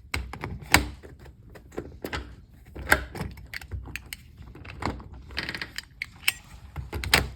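Metal door-knob and lockset parts clicking and rattling as they are handled and worked: a string of irregular sharp clicks and knocks. The knob is not seating or lining up properly.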